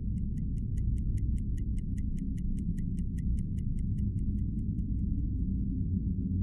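Rapid, even clock-like ticking, about five ticks a second, fading out near the end, over a steady low rumbling drone.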